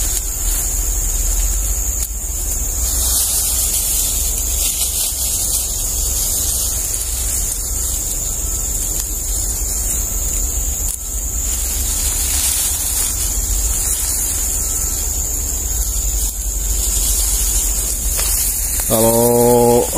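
Steady outdoor noise with no speech: a constant low rumble and a high hiss, with a few faint knocks.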